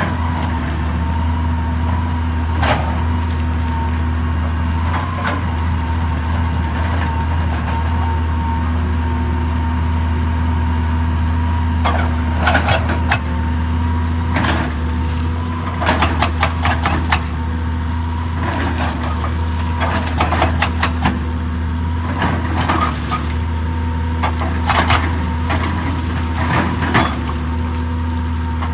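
JCB excavator's diesel engine running steadily under load, broken every few seconds by short bursts of rapid clattering knocks as rock is worked.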